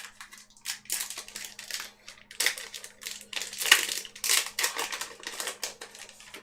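Foil booster pack wrapper crinkling and tearing as it is opened by hand, in irregular rustling bursts, the loudest about four seconds in, over a faint steady hum.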